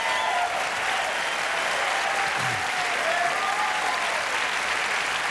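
Audience applauding steadily after a stage dance number.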